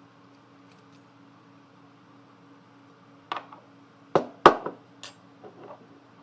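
Small metal padlock parts clicking and knocking against each other as the repinned lock is put back together: a handful of sharp clicks starting about three seconds in, the loudest two close together around four and a half seconds in.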